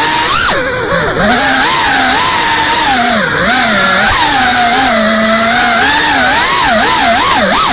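FPV quadcopter's brushless motors whining, the pitch swooping up and down quickly with throttle changes as it flies, with a brief dip about a second in.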